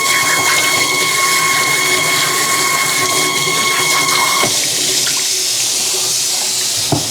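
Water from a sink sprayer running steadily onto a vacuum filter, with a steady whistling tone that stops about four and a half seconds in while the water keeps running. A single knock near the end.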